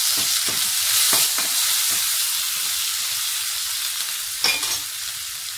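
Mustard seeds, shallots, chillies and freshly added curry leaves sizzling in hot rice bran oil in an aluminium wok, stirred with a metal spoon. The sizzle is loudest at first and eases off gradually, with a single sharp metal clink about four and a half seconds in.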